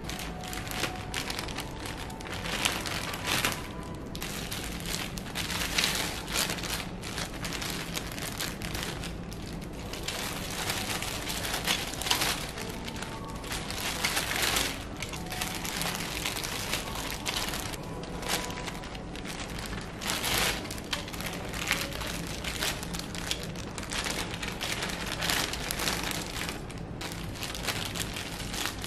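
Thin clear plastic bags crinkling and rustling irregularly as toy parts are pulled out of them by hand, with frequent short, sharper crackles.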